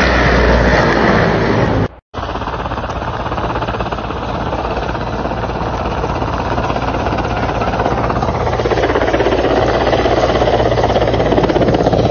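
Mi-8/Mi-17 military helicopter flying low, its main rotor chopping rapidly. After a brief break about two seconds in, a second low-flying helicopter approaches, and the rotor chop grows louder toward the end.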